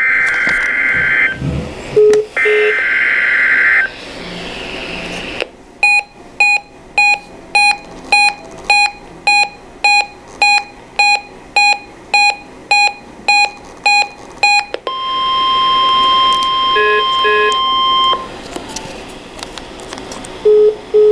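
NOAA Weather Radio alert test. The receiver plays two screechy bursts of SAME digital header data, then its alarm beeps about twice a second for some nine seconds, then the steady 1050 Hz warning alarm tone sounds for about three seconds. A few short, low double beeps come in between.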